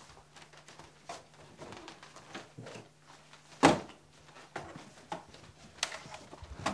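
Shuffling footsteps and scattered knocks as people walk out through a wooden doorway, with one loud knock about three and a half seconds in, over a steady low hum.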